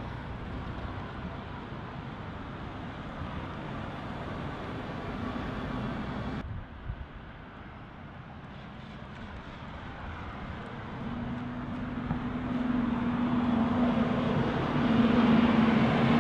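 City buses driving past on a road. After a cut about six seconds in, a MAN city bus approaches, its engine hum growing steadily louder and loudest near the end.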